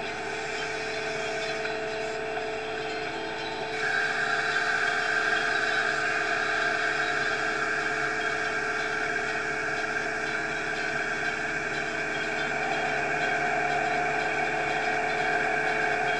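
Siloking self-propelled feed mixer wagon running steadily, heard from inside its cab: engine and hydraulic drive. About four seconds in, a high whine joins and the sound gets louder.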